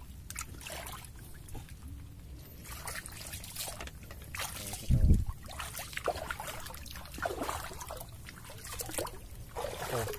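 Shallow seawater splashing and trickling as hands grope among mangrove roots and legs wade through it, with a dull thump about halfway through.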